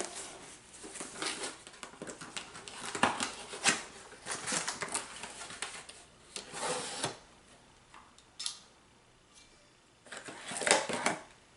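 Hands opening and handling a boxed product: packaging rustling with sharp clicks and knocks of plastic parts. A quieter stretch comes about two-thirds of the way through, then another burst of rustling near the end.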